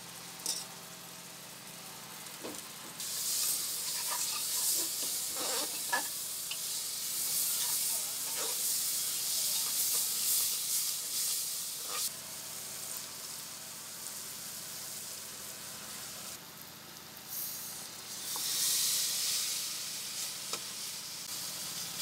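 Beef curry masala frying and sizzling in an open aluminium pressure cooker, while a spatula stirs it and knocks and scrapes against the metal pot. The sizzling gets louder about three seconds in, eases briefly near the end, then picks up again.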